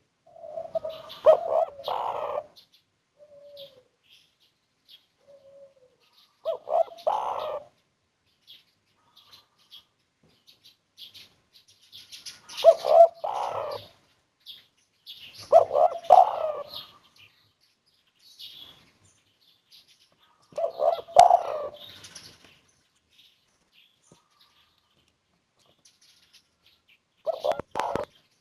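Spotted dove (tekukur) of the 'kuk 1' song type cooing: about six mellow, low phrases of a few notes each, a few seconds apart. Faint higher chirps of small birds come in between the phrases.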